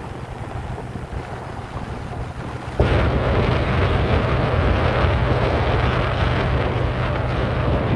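Boat motor running with a steady low hum under wind rushing over the microphone. About three seconds in, the whole sound jumps louder and stays that way.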